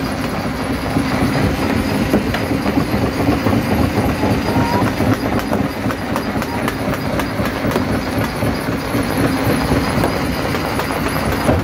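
Stone jaw crusher running with a steady drone, rocks knocking and cracking between the jaws in a continuous, irregular clatter.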